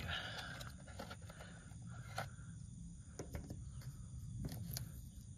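A few faint, short clicks of a snap-on ferrite core being handled on a solar panel's cable, over a low, steady background hiss.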